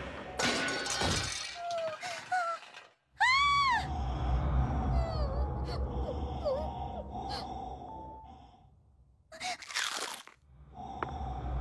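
Cartoon soundtrack sound effects: a crash like something breaking near the start and small frightened gasps, then a short swooping tone that rises and falls. After that a steady low rumble runs under scattered small effects, with another short loud burst near the end.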